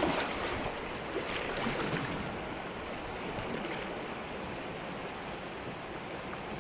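Flowing river water rushing and lapping against the hull of a kayak, with a few short splashes in the first two seconds.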